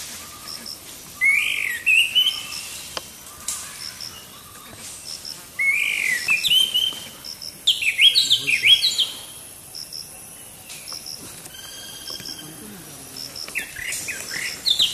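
Several birds calling: bursts of quick sweeping chirps, loudest about eight seconds in and near the end, over a small high double note that repeats about once a second.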